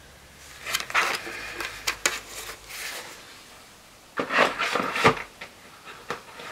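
Rustling and light knocks of sticker sheets being handled and sorted through, in two spells: from about a second in to about three seconds, and again around four to five seconds.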